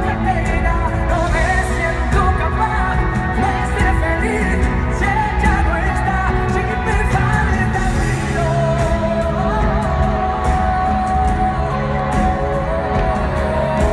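Live pop music from a stage band with drums, keyboards and guitars, with a male lead singer's voice carried over it, heard from the audience.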